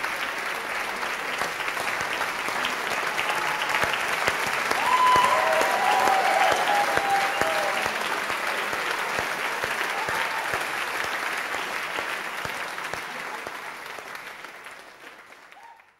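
Concert audience applauding, growing louder about five seconds in and dying away at the end.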